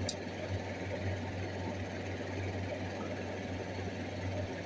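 Steady low hum under a constant hiss, with one short click just after the start.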